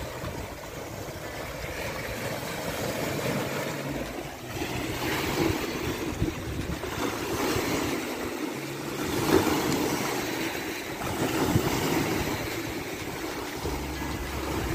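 Baltic Sea waves breaking and washing in, swelling several times, with wind rumbling on the microphone.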